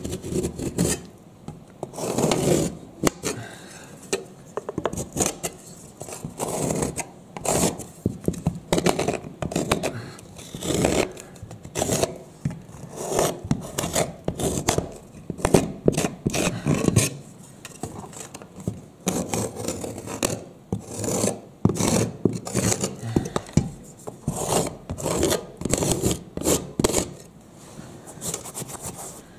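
A large drywall knife's metal blade scraped flat over dried patching plaster texture, knocking off the high peaks in repeated rasping strokes, about one a second.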